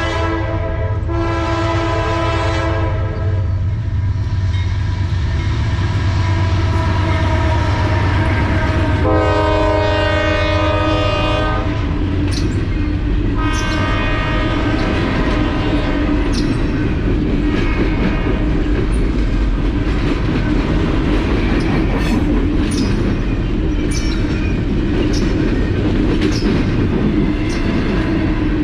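Freight train diesel locomotive horn sounding in blasts over the first three seconds and again in one long blast from about nine to twelve seconds in, over the steady low rumble of the passing train. After the horn, the empty freight cars keep rumbling past with scattered clicks of the wheels over the rail joints.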